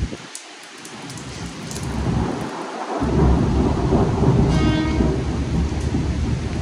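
Thunder rumbling over steady rain: the low rumble builds and comes in strongly about three seconds in, then holds, over the constant hiss of rain.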